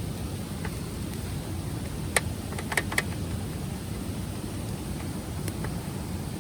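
Steady low rushing noise with a few short, sharp crackles on top: one about two seconds in, two close together near three seconds, and one at the very end.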